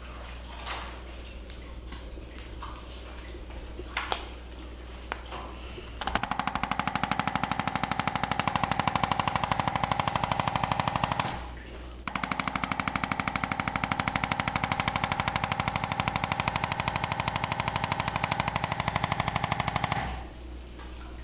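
Handheld electric percussion massager running in two bursts of about five and eight seconds, a rapid, even hammering over a steady motor hum, after a few seconds of faint clicks and handling noise.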